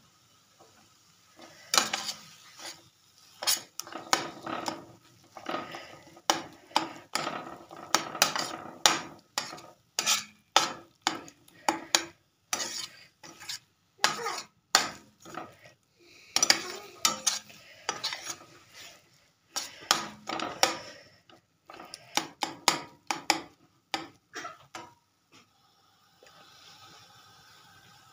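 A slotted spatula scraping and tapping against a frying pan as thick date paste is stirred and mashed with butter, in irregular runs of strokes with short pauses. The strokes stop shortly before the end, leaving a faint steady hum.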